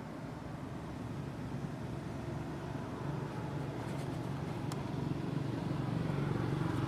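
A motor vehicle's engine running with a steady low hum, getting gradually louder.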